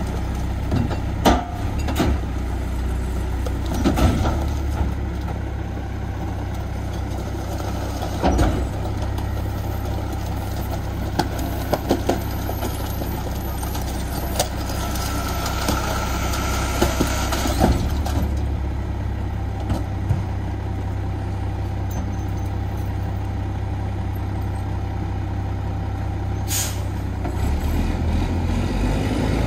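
Mack MR garbage truck's diesel engine idling at the curb while recycling bins are emptied by hand into its McNeilus rear-loader hopper, with repeated knocks and clatter of bins and recyclables. Near the end a short sharp air hiss, then the engine note rises as the truck pulls away.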